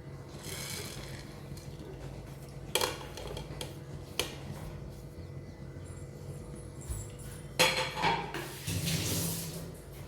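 A metal spoon clinking against a pot and spice containers as spices are added: single sharp clinks about three and four seconds in, and a cluster of knocks near the end. A steady low hum runs underneath, with a short hiss near the end.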